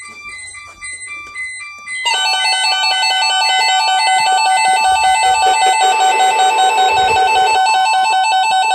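Emergency Alert System attention signal: two steady tones sounding together, just below 1 kHz, loud and continuous, starting about two seconds in. Fainter short beeping tones come before it.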